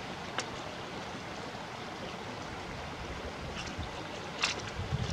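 Steady rushing of flowing water, with a few small sharp clicks and rattles as a box of .22 Short cartridges is opened and its cartridge tray slid out.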